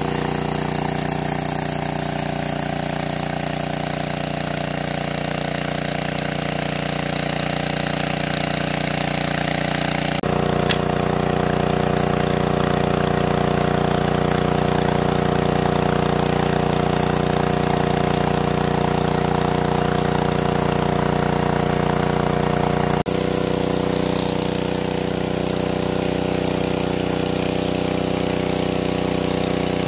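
Small engine of a large-capacity water pump running steadily at constant speed. Its note shifts abruptly twice, about ten seconds in and again near two-thirds of the way through.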